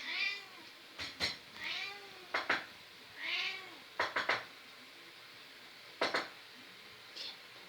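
A domestic cat meowing in answer to knocking: sharp knocks, singly or in quick pairs and triples, alternate with about three short meows.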